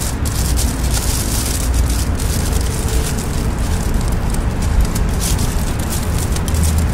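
Aluminium foil crinkling and crackling in quick, irregular bursts as it is squeezed and wrapped by hand around a vine stem, over a steady low rumble.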